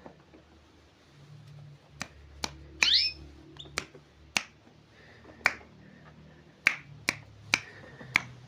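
Canary giving about nine sharp, clicking chip calls at irregular intervals, with a brief warbled twitter about three seconds in.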